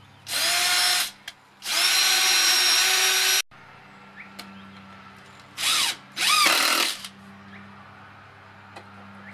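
Cordless drill driving screws into the wooden sides of a bat-house partition: four runs, the longest nearly two seconds, the motor whine rising as each starts and falling as it stops, with a pause of about two seconds in the middle.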